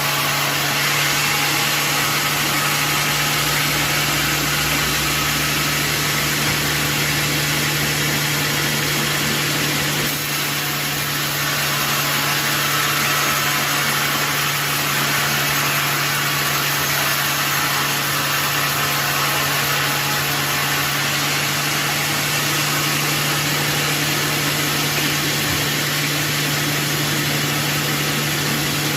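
Sawmill machinery running steadily: a constant low motor hum under an even, loud hiss, with a brief dip about ten seconds in.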